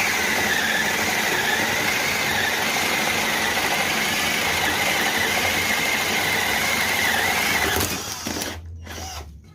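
Maktec MT081 cordless drill's motor, powered by an 18V Makita LXT battery, running steadily at full speed with a high, even whine, then released just before 8 seconds and blipped twice briefly.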